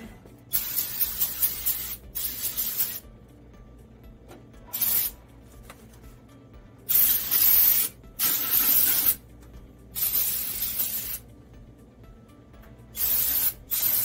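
Aerosol can of carburetor cleaner spraying in about eight separate hissing bursts, each up to about a second and a half long, with short pauses between them.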